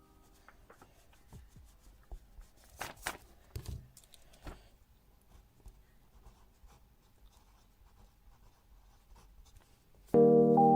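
Quiet pen strokes and taps of writing on paper, with a few louder scratches about three seconds in. Background piano music comes in loudly near the end.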